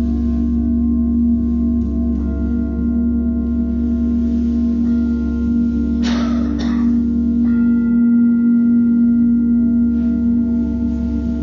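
Singing bowls ringing in layered, sustained tones over a low, steady didgeridoo drone, with fresh bowl tones struck in three times. About six seconds in, two short noisy swishes sound.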